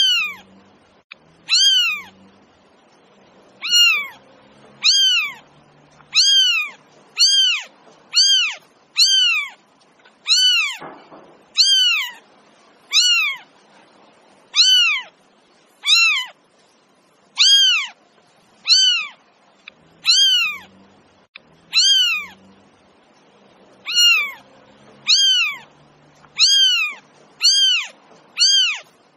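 Domestic cat meowing over and over: short, high-pitched meows, each rising then falling in pitch, about once a second.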